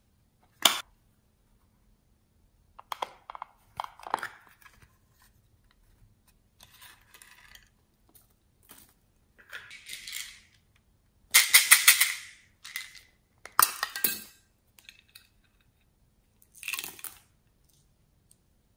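Small plastic beads, sequins and charms rattling in plastic containers and being tipped out into a dish of slime, in several short bursts of clicking and clinking with quiet gaps between. The loudest is a quick run of clicks about two thirds of the way through.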